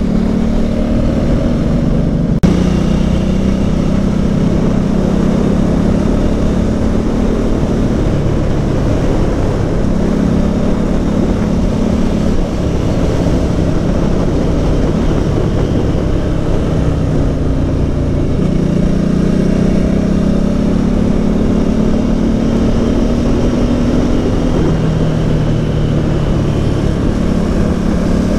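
Motorcycle engine running on the move, its pitch slowly rising and falling with the throttle, under steady wind rush on the microphone. A single sharp click sounds about two and a half seconds in.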